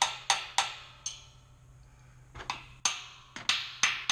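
Metal ratchet tapping on the Kobalt air compressor's valve that bleeds off the discharge line, which is clogged with oil and gunk and stays plugged. The sharp, ringing taps come three in a row, stop for nearly two seconds, then return faster and less even.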